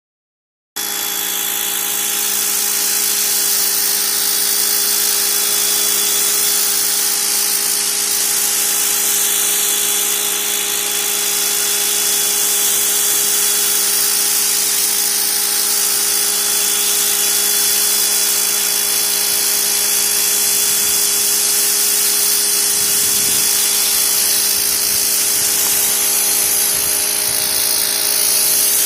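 Pressure washer running steadily: an even motor hum under the loud hiss of the high-pressure water spray, starting abruptly just under a second in.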